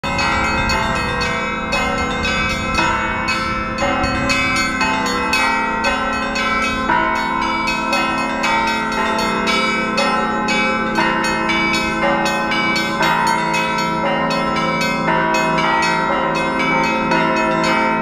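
Russian Orthodox church bell ringing (zvon) from a belfry of several bells. Small bells are struck in a rapid, continuous pattern, many strokes a second, over the lasting ring of larger bells.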